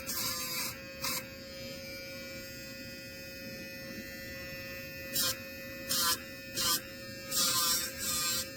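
Casfuy six-speed electric dog nail grinder running with a steady whine, broken by several short bursts of grinding as the spinning grinder touches a dog's nails, the longest near the end.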